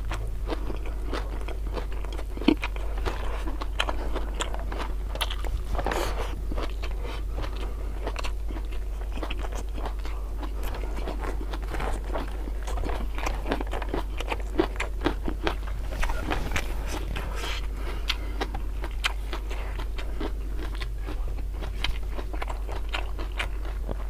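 A person chewing and crunching food close to the microphone: raw vegetables with rice and beef tongue, giving many small crisp crunches and clicks. A steady low hum runs underneath.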